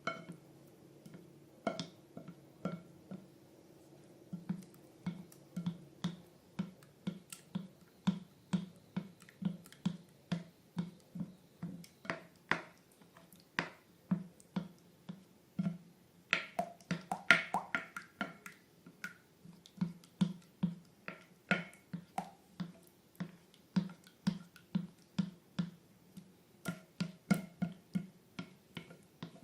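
Slime being squeezed and poked by hand, giving a steady run of sticky clicks and pops about twice a second, a few louder ones in the middle.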